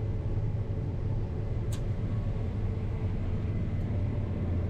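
Steady low engine drone of harvest machinery heard from inside the cab, with one brief click about a third of the way in.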